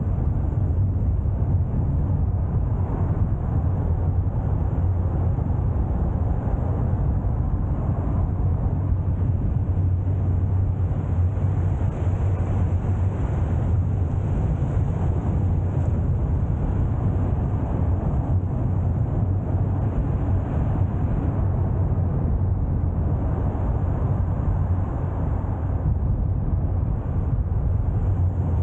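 Car driving at a steady speed: engine and tyre noise heard from inside the cabin as a steady low rumble.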